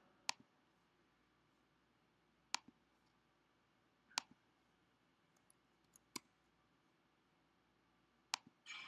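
A handful of single, sharp computer mouse clicks, a second or two apart, over near silence.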